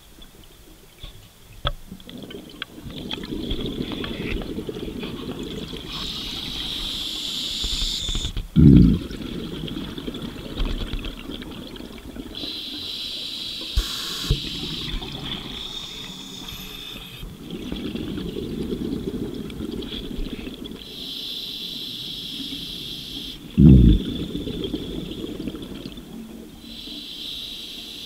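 Scuba regulator breathing underwater: a hiss on each inhalation, several breaths apart, alternating with the low bubbling of exhaled air. Two short loud bubble bursts stand out, one about a third of the way in and one near the end.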